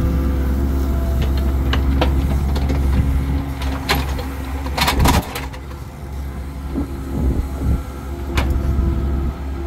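Tracked excavator's diesel engine running steadily under load while the bucket digs wet soil for a drainage trench, with knocks and clanks from the bucket and arm. A cluster of louder clanks comes about five seconds in; the engine then eases off and picks up again near the end.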